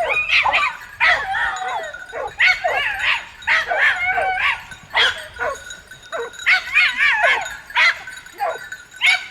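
A pack of hounds baying and yelping together, many overlapping wavering cries coming in rapid clusters, as dogs give tongue on a hunt.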